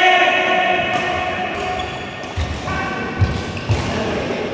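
A person's long, drawn-out high-pitched voice, a held call or sung note, fading out about two seconds in and followed by a shorter one, with a few dull thuds of footsteps on the badminton court's mat near the end.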